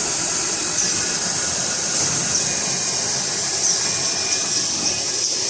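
Toilet paper converting machinery running: a steady, loud mechanical hiss with no pauses.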